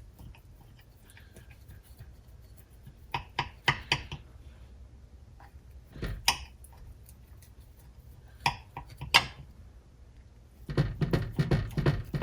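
Knife and utensils knocking and scraping against a metal baking pan while the blondies are cut: a few scattered clinks, then a quick run of clattering near the end.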